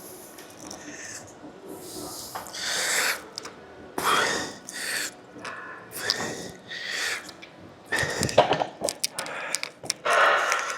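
Forceful, breathy exhales during a heavy weightlifting set, a hard breath every couple of seconds. A cluster of sharp clicks and clanks from the gym equipment comes shortly before the last breath.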